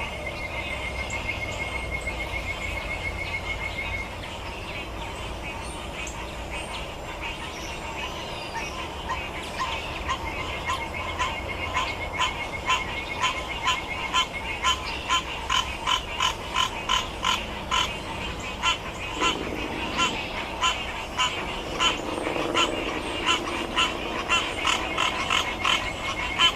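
Frogs calling at a pond: a frog's short call repeated steadily, about twice a second, starting about a third of the way in and getting louder. It runs over a steady high-pitched trill.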